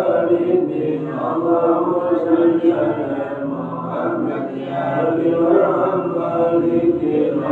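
Men's voices chanting the morning wirid, Islamic dhikr recited in Arabic, in a continuous unison recitation led by the imam's husky, hoarse voice.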